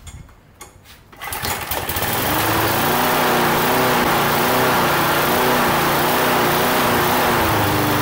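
Briggs & Stratton Quantum lawn mower engine starts about a second in and then runs steadily, its speed wavering slightly before settling near the end. It is firing on a new spark plug that replaced one found open circuit, which was the no-spark fault.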